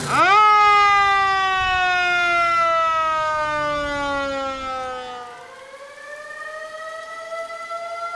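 A siren wailing: a sharp rise at the start, then one long falling wail over about five seconds, followed by a second tone that rises slowly.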